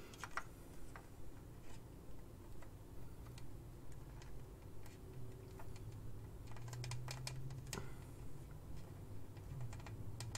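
Faint, scattered clicks and taps of plastic figure parts being handled and fitted together, with a small cluster of clicks a little past the middle. A low steady hum runs underneath.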